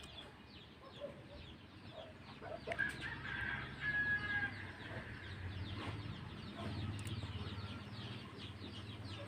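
Chickens clucking faintly in the background, with one short held call about three seconds in.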